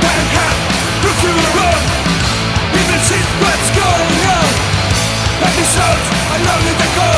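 Punk rock band playing an instrumental passage: electric guitar lead with many short bending notes over bass and drums, with cymbal crashes now and then.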